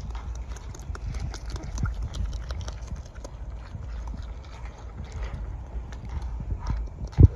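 Beaver chewing close up, its teeth crunching and clicking rapidly and irregularly on the food held in its paws. A single loud thump comes near the end.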